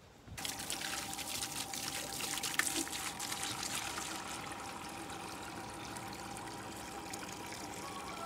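Water running and trickling steadily at a red plastic poultry waterer. It starts just after the beginning and stops abruptly at the end.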